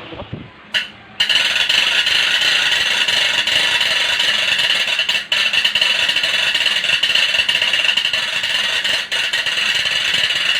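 Wooden toy gun's sound effect: a click, then from about a second in a loud continuous rattling that keeps going, with two brief breaks.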